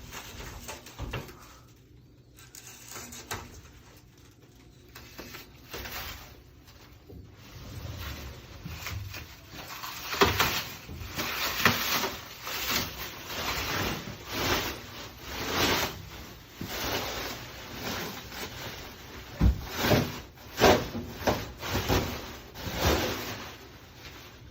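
Plastic shrink wrap being peeled off closet doors and crumpled: uneven crinkling and rustling, faint at first and then busier for most of the time, with a few dull knocks.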